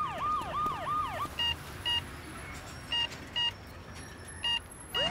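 Cartoon ambulance siren: a quick run of repeated falling wails for about the first second, then short electronic heart-monitor beeps in pairs, each pair about a second and a half apart.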